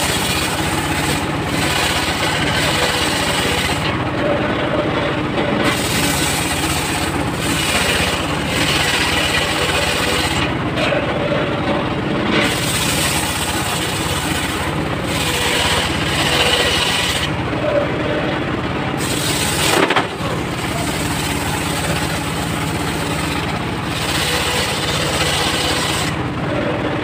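Homemade engine-driven table circular saw ripping mahogany planks lengthwise: the engine and blade run steadily, and the blade's cutting noise swells and fades with each pass of the wood. A single sharp knock comes about three-quarters of the way through.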